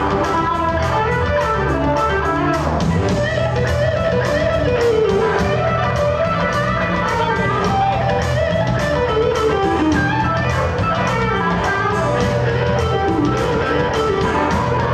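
Live electric blues band playing an instrumental passage: an electric guitar lead with bending, sliding notes over bass guitar and drums keeping a steady beat.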